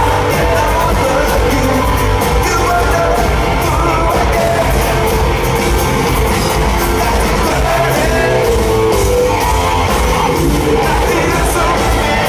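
Live rock band playing loudly through a concert PA: electric guitar and drums, heard from among the audience in a large hall.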